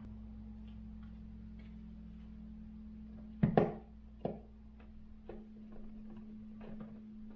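Light clicks and knocks from handling a wall switch cover plate and its screws, with a sharp knock about three and a half seconds in and a second one just after. Under them runs a low rumble from a diesel truck outside, which stops about five seconds in.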